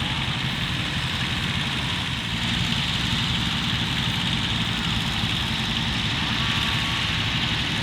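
Steady engine-like running: a low rumble with a constant hiss over it, unchanging throughout.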